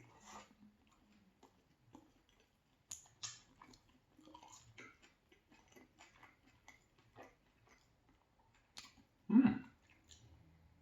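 Close-miked chewing of a bite of pizza with a crunchy crust: irregular soft crunches and wet mouth clicks. A hummed "mm" of approval comes near the end.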